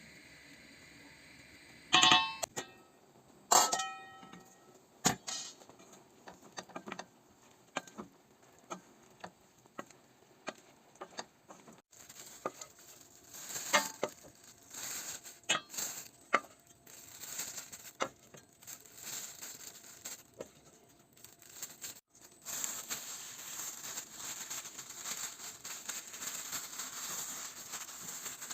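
Kitchen handling noises. Two loud clinks with a short ringing tone come a couple of seconds in, followed by a run of lighter taps and crinkling. A steady rustle sets in for the last several seconds.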